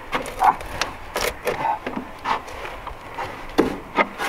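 Irregular knocks, bumps and scuffs of a person clambering out through wooden wall framing, boots and body knocking against the studs, with sharper knocks about a second in and twice near the end.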